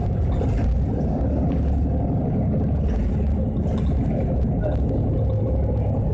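Mercedes-Benz Citaro city bus heard from inside the passenger cabin while driving: a steady low rumble of engine and road noise.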